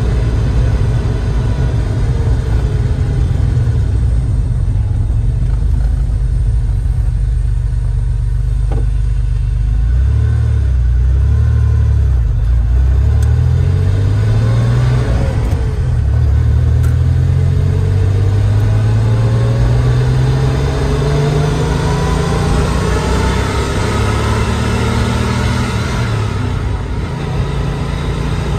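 1988 Porsche 911 Turbo's air-cooled, turbocharged 3.3-litre flat-six under way, heard from inside the cabin with steady road noise. From about ten seconds in the engine note climbs repeatedly in pitch as the car accelerates, with breaks between the climbs as it shifts up.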